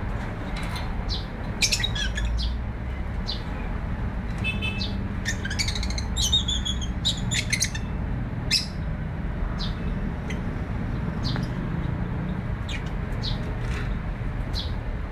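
Bird chirping: many short, high chirps throughout, coming thickest in a rapid twittering run about halfway through, over a steady low background rumble.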